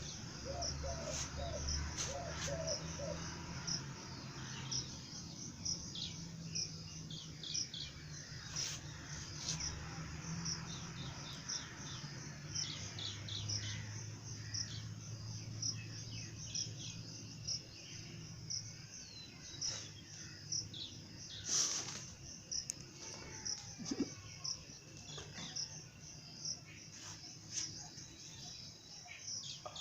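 Small birds chirping over and over in short, high calls, over a low steady hum. A few low pulsed calls sound in the first seconds, and a single louder sharp sound comes a little past the middle.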